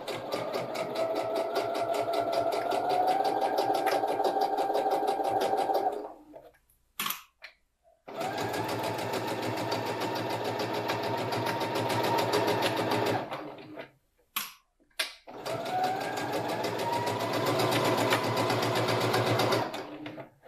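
Electric domestic sewing machine stitching a seam in three runs of a few seconds each, its motor whine rising in pitch as it picks up speed. Short pauses between the runs hold a few clicks.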